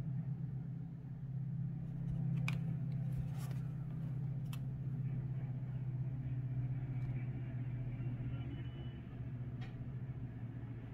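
A low, steady hum throughout, with a few light scratches and taps of a cat shifting about inside a cardboard box, at about two and a half, three and a half and four and a half seconds and again near the end.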